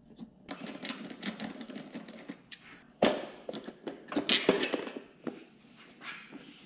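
Hands handling parts and a cable on a minibike's engine: a string of small clicks, knocks and rustles, with a sharper knock about three seconds in.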